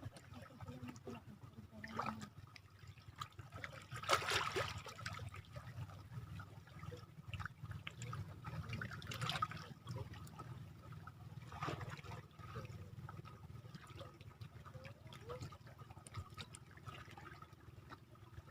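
Small waves washing and trickling at the water's edge, surging every few seconds, the loudest about four seconds in, over a steady low background noise.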